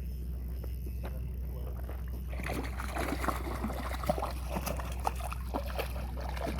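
Water splashing and sloshing at the side of a boat, with short irregular splashes setting in about two and a half seconds in, as a hooked trout is brought in at the surface; a steady low hum runs underneath.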